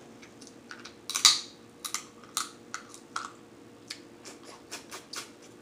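Cooked snow crab leg shells cracking and snapping as they are broken open by hand and bitten. A quick run of sharp clicks and crunches, the loudest about a second in.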